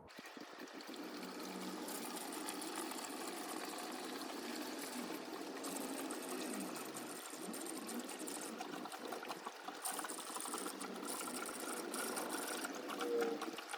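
Diesel fuel pouring steadily from a 5-litre jerry can into a diesel heater's fuel tank.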